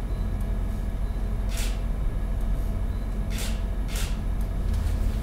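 Steady low room hum with three short clicks of a camera shutter: one about a second and a half in, then two close together a little past three and a half seconds.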